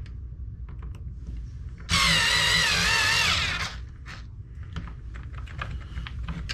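Small cordless power driver running for about two seconds, its whine wavering in pitch as it drives in a screw on an RC truck's drive cup. A few light clicks of small parts being handled come before and after it.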